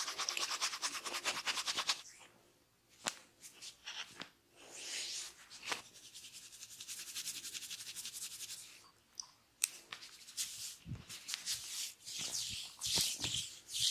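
Fingers rubbing and scratching through long hair in a head massage. A fast, even scratching runs for about the first two seconds, then gives way to softer swishing rubs broken by a few sharp clicks.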